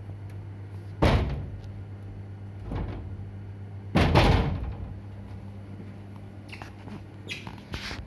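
Two heavy thumps, about one second and four seconds in, each dying away over about a second, with a softer one between them, over a steady low hum.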